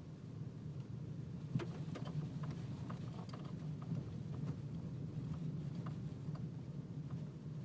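Vehicle driving on a dirt road, heard from inside the cab: a steady low engine and tyre hum with scattered small clicks and ticks.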